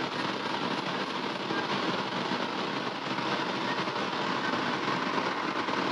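Steady rushing noise of a commercial gas wok stove burning under a lidded pan of braising potatoes.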